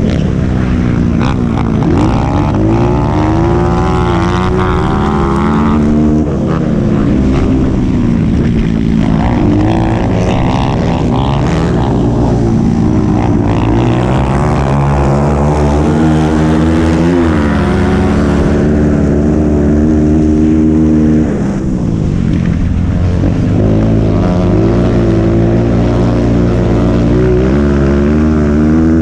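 Honda CRF230's air-cooled single-cylinder four-stroke engine at race pace, revving up and down through throttle changes and gear shifts, with wind noise. The throttle is briefly closed about three-quarters of the way through before it picks up again.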